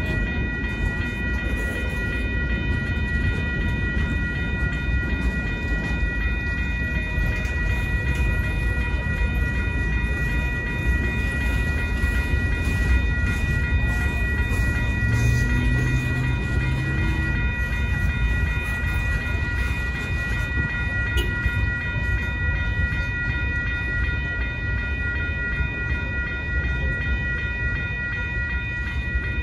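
Freight cars of a Union Pacific train rolling steadily past over a grade crossing, their wheels rumbling and clattering on the rails. A steady high ringing runs over it.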